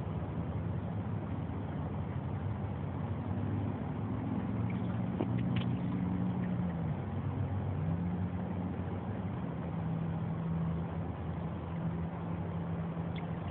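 An engine running steadily at low pitch; its pitch dips and comes back up about seven seconds in.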